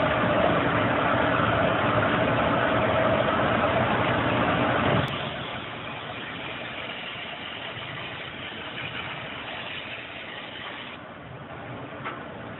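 Steady machine running noise with a constant hum in it, which drops sharply to a quieter, even hiss about five seconds in; a single light knock near the end.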